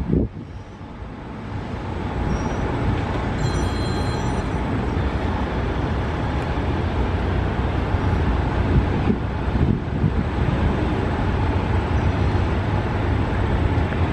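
Amtrak GE Genesis diesel locomotive running as it approaches slowly at the head of a passenger train: a steady low rumble of engine and wheels on the rails that grows louder over the first two seconds, then holds.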